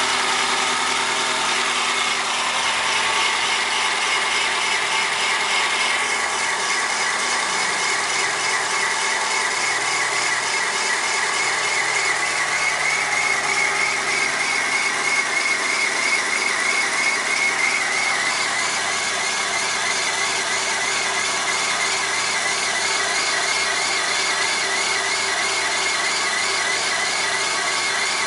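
1997 Corsa 1.0 MPFI engine idling with a high, chirping squeal over it, a wavering tone that rises and falls several times a second and grows clearer about halfway through. This is the engine's cold-start grinding or chirping noise, which goes away once the engine is warm.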